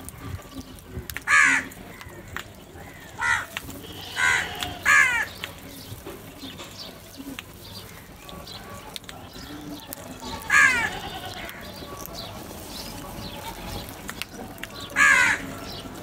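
House crows cawing: six loud, harsh single caws, four within the first five seconds and then one each about ten and fifteen seconds in.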